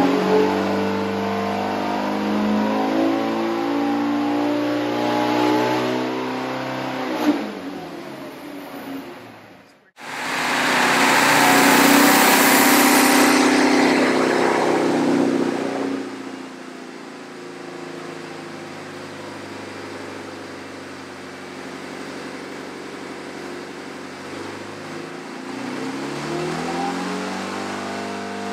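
1932 Stutz DV32 322-cubic-inch dual-overhead-cam straight-eight running hard at high revs on a water-brake engine dynamometer, under the dyno's load, then winding down as the throttle comes off. After a brief gap it runs fast and loud again, drops to a lower speed, and starts to rev up once more near the end.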